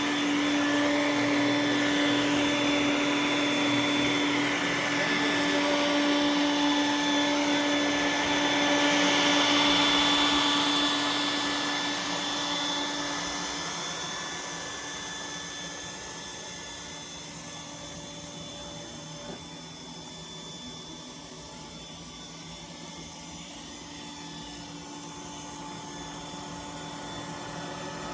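iRobot Roomba s9 robot vacuum running, a steady motor whine with an airy suction hiss; it grows louder towards the middle, then fades to a quieter level for the second half.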